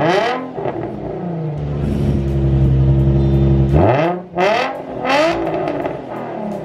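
Nissan NISMO Z's V6 engine, breathing through a titanium Tomei dual-exit exhaust, being revved in sharp blips: one at the start, a steadier held note, then two more quick revs about four and five seconds in, each falling back toward idle.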